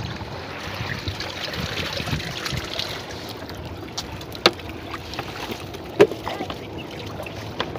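Water splashing and dripping from a lifted bamboo-framed fish-trap net full of small fish and weed, with two sharp knocks about a second and a half apart near the middle.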